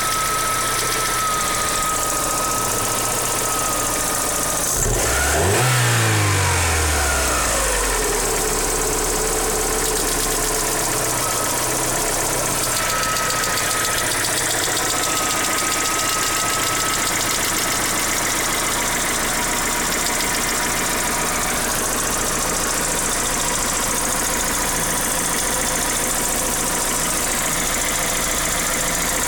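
Daewoo Nexia's warm engine idling with an unexplained metallic knock; about five seconds in it is revved once, rising and falling back to idle over about three seconds.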